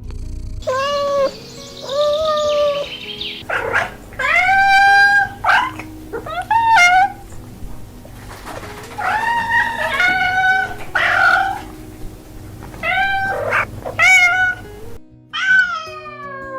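Domestic cats meowing: a string of about a dozen separate meows, some short and some long and drawn out, in varying pitches, with soft background music underneath.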